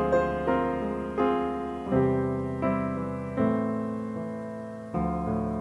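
Slow background piano music, with notes and chords struck about once a second and left to fade.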